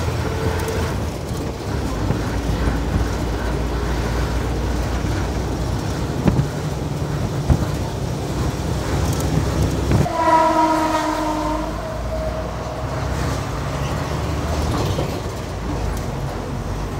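Steady engine and road noise of a moving bus, with two sharp knocks near the middle. About ten seconds in a horn sounds once for about two seconds.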